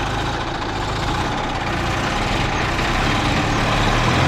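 Massey Ferguson tractor diesel engines running steadily, one tractor chained to the other to pull it out of a pit. The engine sound grows a little louder toward the end.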